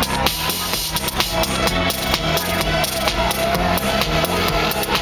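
Live techno played over a loud sound system: a steady drum-machine beat with kick and hi-hats under a bass line and a held synth tone.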